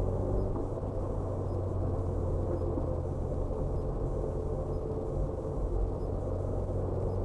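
Steady car engine and tyre noise heard inside the cabin while driving, a constant low hum with road rumble.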